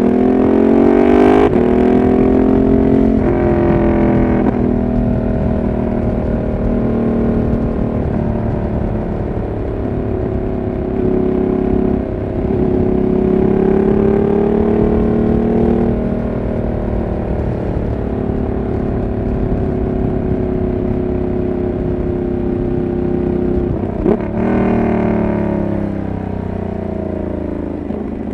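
Ducati Monster 1200 R's L-twin engine through an SC Project exhaust, heard from the saddle at expressway speed. The revs climb and drop back several times in the first five seconds as it shifts up, the engine then pulls steadily, and the revs fall away a little before the end.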